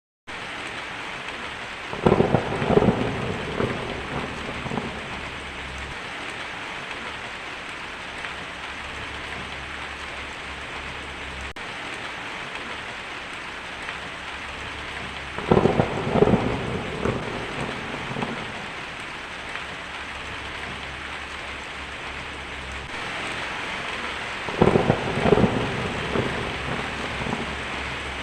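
Heavy rain drumming steadily on a tin roof, with three peals of thunder: one about two seconds in, one around the middle and one near the end, each rumbling for two or three seconds.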